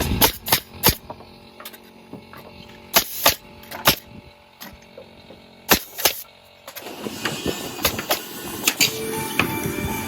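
A series of sharp, irregular knocks and clicks, with music coming in about seven seconds in.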